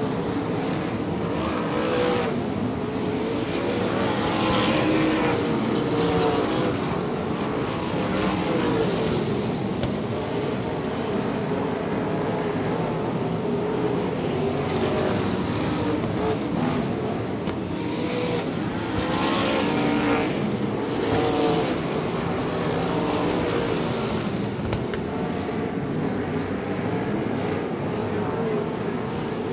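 360 wingless sprint cars' V8 engines racing, rising and falling in pitch as they accelerate and lift through the turns, with louder swells each time cars pass close by.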